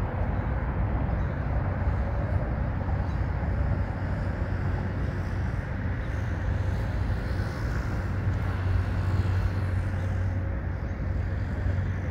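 Steady road traffic noise, a constant low rumble with no breaks.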